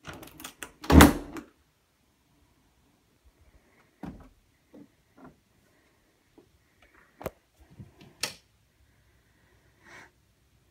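A bedroom door being opened: a rattle of clicks from the latch and a loud bump about a second in, followed by scattered faint knocks and taps.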